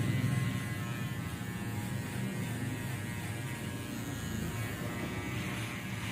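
Electric hair trimmer running with a steady buzzing hum, slightly louder in the first half-second.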